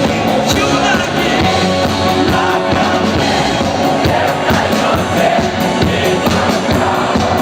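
Rock music with a steady driving beat, in a stretch of the song without recognised lyrics.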